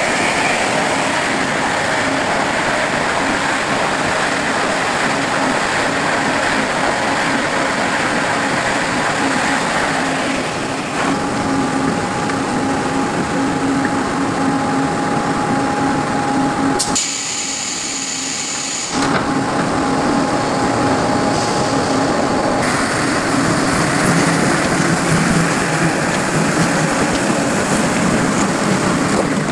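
Veneer peeling line machinery in a plywood mill running with a loud, steady mechanical noise and a steady hum. The lower part of the sound drops out briefly about two-thirds of the way through, then returns.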